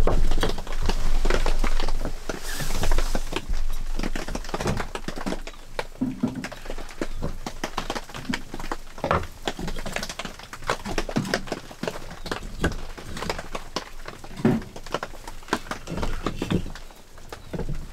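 Wood fire crackling in a small portable wood-burning stove, with irregular clicks and light knocks as pieces of wood are handled at its door. The first few seconds are louder, with close rustling.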